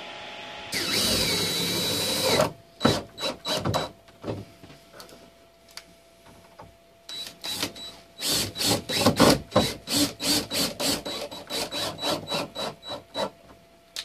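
DeWalt 20V cordless drill running: one steady whirring run about a second in, then a string of short stop-start bursts and clicks through the second half as screws are driven into the 3D-printed plastic shelf brackets.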